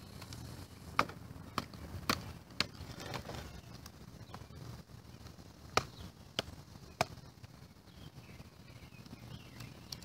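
Sharp wooden knocks from batoning: a length of wood striking a Spyderco Endura 4 folding knife to drive it into a piece of firewood and split it. Four knocks about half a second apart, a pause, then three more.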